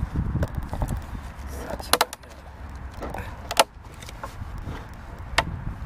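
A few sharp knocks and clicks of hard objects being handled while rummaging through a dumpster: two close together about two seconds in, then single ones later. Underneath is a low rumble of wind and handling on the microphone.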